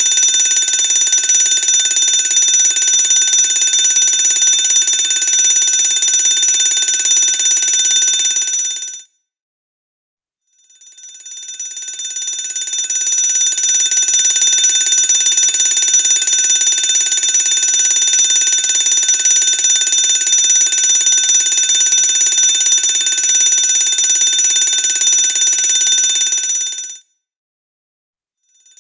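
Fire alarm ringing loudly and continuously in long stretches. It cuts out twice for about a second and a half; after the first break it swells back in over a couple of seconds.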